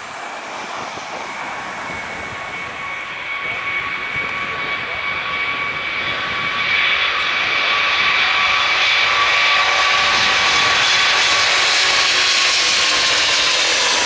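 Jet airliner engines running: a steady whine with several held tones over a broad rush, growing louder about seven seconds in.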